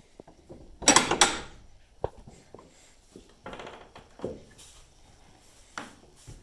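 A loud clatter about a second in, then scattered knocks and rustles.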